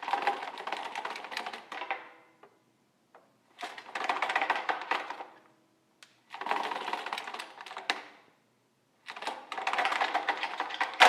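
Manual pull-down projector screen being pulled and rolling on its spring roller, a rapid clicking rattle from the roller mechanism. It comes in four bursts of about two seconds each, each starting sharply and fading out.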